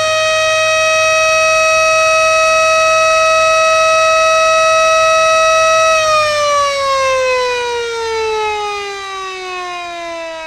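A siren sounding at the end of a countdown: one steady held tone for about six seconds, then winding down slowly in pitch and fading.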